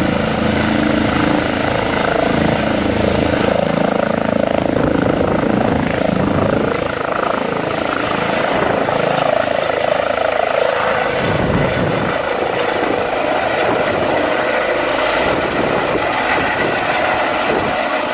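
Eurocopter EC135 twin-engine rescue helicopter at lift-off power: steady turbine and rotor noise with a thin high whine running over it, as it lifts off and climbs overhead.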